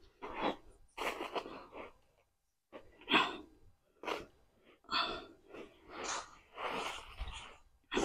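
Garden fork stabbing into and turning loose potting soil on a tarp: short scraping rustles about once a second.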